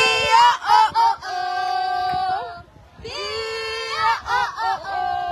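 A high-pitched voice close by, cheering in a sing-song way with long, held notes. It comes in two drawn-out phrases, with a short break about two and a half seconds in.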